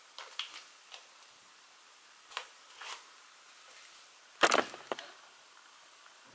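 Bare feet on a glass digital bathroom scale on a tile floor: a few soft taps and clicks, then a louder knock about four and a half seconds in.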